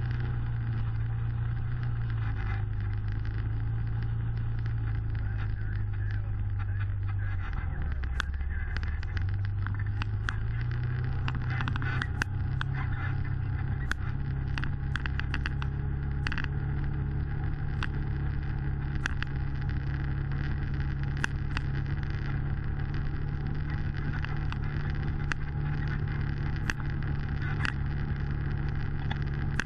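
Side-by-side UTV engine running under way, heard from inside the cab. It drops in pitch about seven seconds in and picks back up a few seconds later. From then on frequent sharp clicks and rattles come as the machine jolts over the rough trail.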